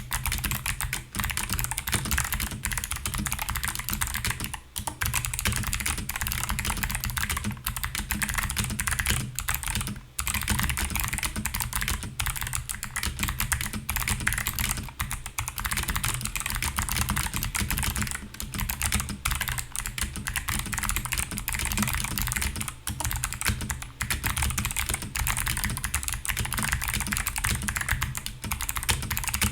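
Mechanical keyboard with clicky switches being typed on fast: a dense, continuous stream of sharp key clicks, broken by a few short pauses.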